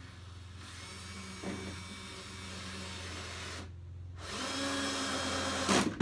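Power drill driving a tek screw up through the van's steel floor into a pine floor batten, running in two stretches with a short pause about four seconds in; the second stretch is louder and peaks near the end.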